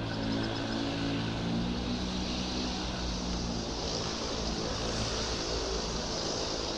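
Steady vehicle running noise: a low engine hum over a broad rushing sound of road or wind. The hum fades after the first couple of seconds and the rush carries on.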